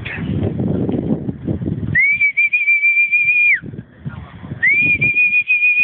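Two long, steady, high whistles, each held about a second and a half, that slide up onto pitch and drop off at the end; the second begins about a second after the first stops. Scuffling, crunching noise comes before the first whistle and between the two.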